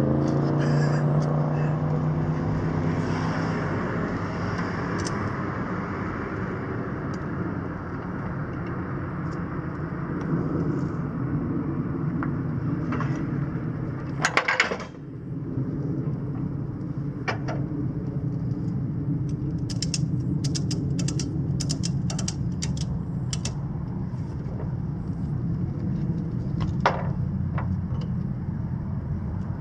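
Road traffic on the street: a vehicle goes by with a falling pitch at the start, then a steady low engine rumble. Tie-down straps being handled: a loud short clatter about halfway through, and a quick run of ratchet clicks a few seconds later as a Quickloader self-ratcheting strap is pulled tight.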